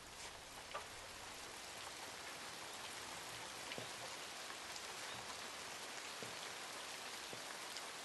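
Steady rain falling, with separate drops tapping close by now and then; it swells a little at first, then holds steady.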